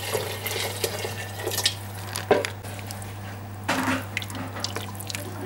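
Stock pouring and splashing from a plastic measuring jug into a stainless steel pot of onions and potatoes for the first second and a half or so. After that, a wooden spoon stirs the liquid, with a few knocks against the pot.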